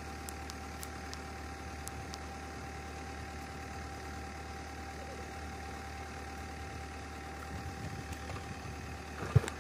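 Vehicle engine idling steadily, a low hum with a faint steady whine, with a single sharp knock near the end.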